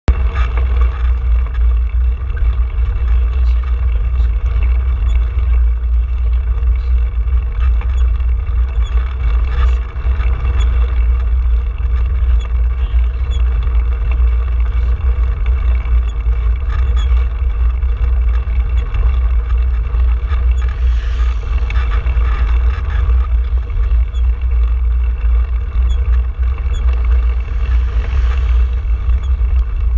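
Wind rumbling on the microphone of a handlebar-mounted camera as a bicycle rides along a paved road, with steady tyre and road noise. Near the end a vehicle passes close by with a brief hiss.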